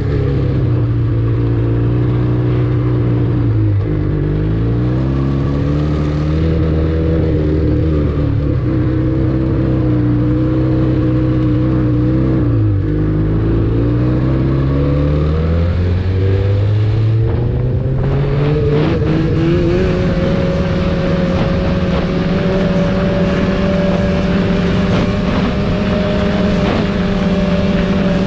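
Snowmobile engine running under way, heard from onboard. Its pitch dips briefly twice as the throttle eases, then climbs a little past halfway and holds steady at a higher pitch.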